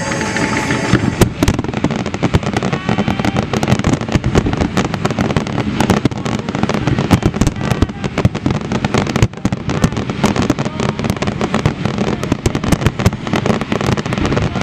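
Aerial fireworks shells bursting in a dense, continuous barrage of bangs, many going off close together.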